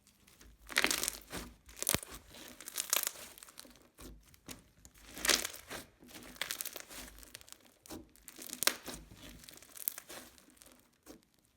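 Sugar scrub slime being squished and stretched by hand, with bead-filled crunches and small bubble pops coming in irregular bursts, several close together.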